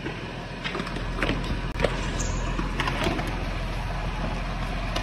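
Tractor engine running steadily, with scattered crunches and scrapes on loose stone as concrete is let out of a tractor-mounted pan mixer over drainage pipe.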